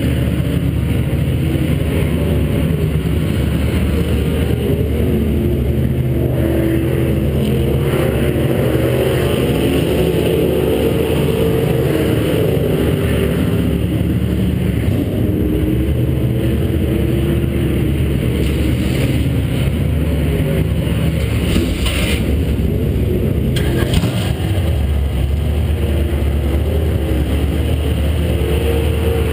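A late model stock car's V8 engine idling, heard from inside the cockpit, with small rises and falls in pitch.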